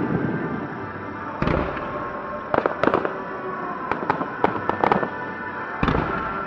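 Aerial fireworks shells bursting. There is a boom about a second and a half in, then sharp cracks, then a quick run of crackling pops over the next couple of seconds, and another boom near the end.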